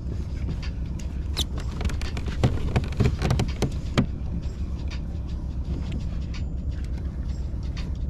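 A cluster of clicks and knocks from about a second and a half to four seconds in, as a small rockfish and tackle are handled on a kayak, over a steady low rumble.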